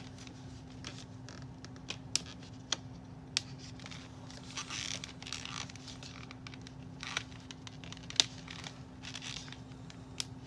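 Doll-clothing pack being opened by hand: plastic packaging rustling, with several sharp clicks and snaps as the staples holding the doll hoodie are cut and pulled free, the loudest snap near the end. A steady low hum runs underneath.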